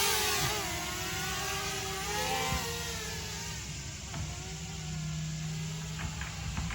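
DJI Mavic Mini quadcopter's propellers whirring in flight, a whine whose pitch wavers up and down as the motors change speed.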